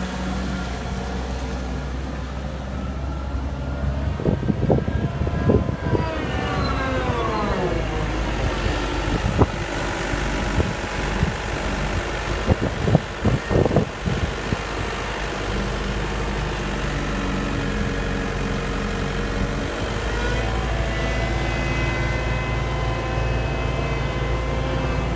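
CAT 906H compact wheel loader's diesel engine running as the machine drives, its pitch climbing a few seconds in and then dropping steeply as the revs come down. Some sharp knocks come in two clusters, a few seconds in and about halfway through.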